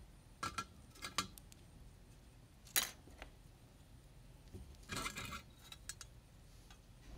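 Light metallic clinks and taps of a fork against a small folding Esbit pocket stove as it is handled: a few separate knocks, the sharpest about three seconds in and a short cluster around five seconds.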